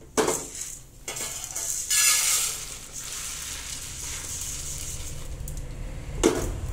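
Dry-roasted black urad dal and dried red chillies tipped out of an aluminium kadai onto a steel plate. A metal clank as the pan is lifted comes first, then the gritty rush of the lentils sliding out, then a steady hiss, and a single knock about six seconds in.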